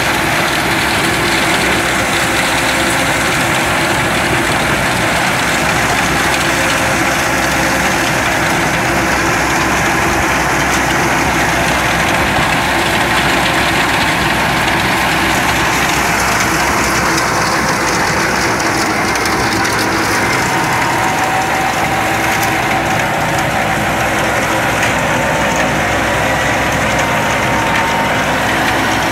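New Holland T7200 tractor engine running steadily under load, driving a PTO stone crusher through the ground.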